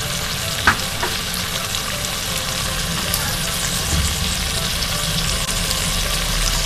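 Carrot and potato curry sizzling in oil and ghee in a clay handi over high heat: a steady frying hiss. One sharp click comes under a second in.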